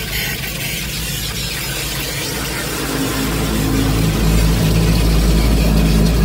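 Automatic car wash machine heard from inside the car: water spray hissing on the windshield and body, then from about halfway through a low, steady drone of the wash machinery that grows louder as it moves over the car.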